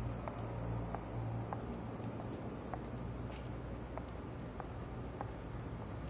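Crickets chirping steadily, about four pulses a second, over a low hum, with soft regular taps of footsteps walking.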